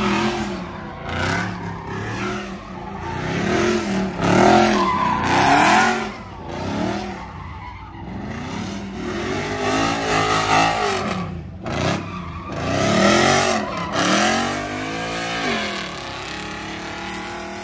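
Car engines revving up and falling back again and again, with tyres squealing and skidding as cars slide and spin at a street takeover.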